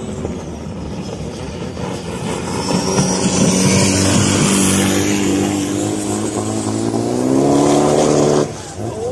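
Racing long-tail boat engine running hard at high revs, getting louder from about three seconds in, its pitch rising a little before it breaks off suddenly near the end.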